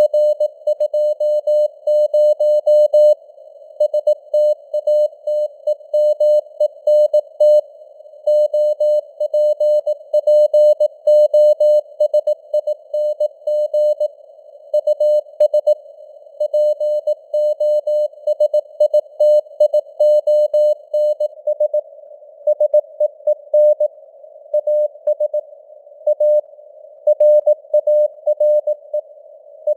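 Morse code sent at 18 words per minute: a single mid-pitched tone keyed on and off in dots and dashes, with gaps between letters and words, over a narrow band of hiss that imitates radio noise.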